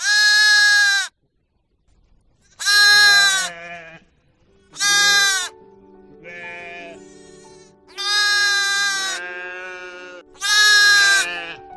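A farm animal bleating over and over: six loud, drawn-out bleats of about a second each, one of them softer. Soft steady background music comes in partway through.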